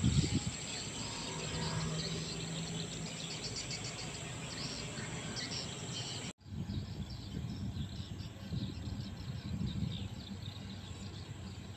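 Tropical forest ambience: insects droning steadily with a high shrill tone, with a few faint chirps. About six seconds in it cuts off abruptly and gives way to a lower, rumbling outdoor noise without the insect tone.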